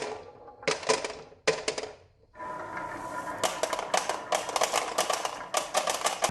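Marbles clattering along a marble-run track: dense runs of rapid clicks and rattles, with a brief pause about two seconds in.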